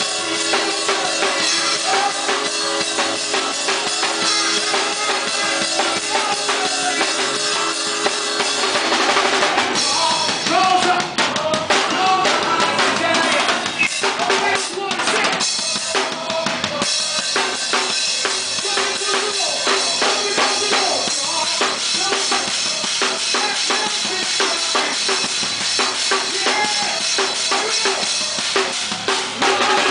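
Acoustic drum kit played live in a steady groove, with continuous beats of kick, snare and cymbals over band instruments holding chords underneath. The drumming gets busier about ten seconds in.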